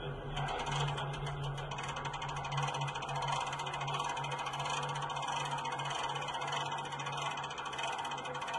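A small engine idling steadily, a low even hum with a rapid mechanical ticking over it.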